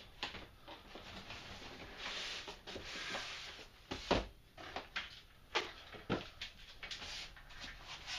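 Packaging of a boxed RC radio transmitter being handled and opened: rustling with several sharp knocks, the loudest about four seconds in.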